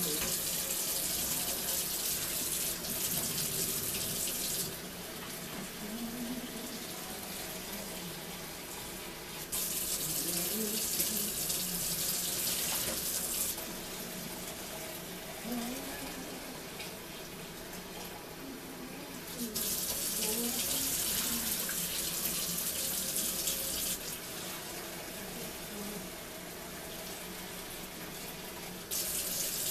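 Kitchen faucet running into a stainless steel sink, the water pouring over a head of hair as it is rinsed. The splashing swells louder for a few seconds at a time, three or four times.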